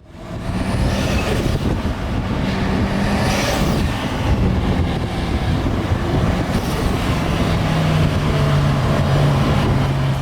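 Straight-piped, turbocharged Subaru WRX driving at a steady speed: a continuous low engine drone with heavy road and wind noise. Two brief rising whooshes come about one second and three and a half seconds in.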